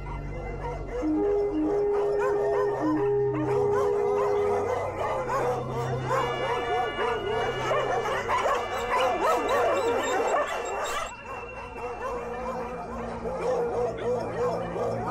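Several dogs baying and howling together over music, a dense wavering chorus that cuts off abruptly about eleven seconds in, leaving the music.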